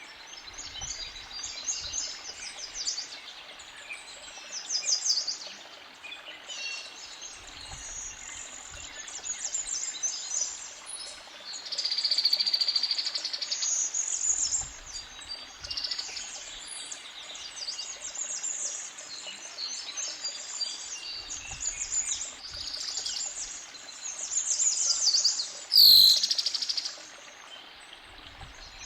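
A forest creek bubbling steadily under woodland birds singing, with many overlapping songs and chirps. Near the end a sudden, sharp, loud call stands out above the rest.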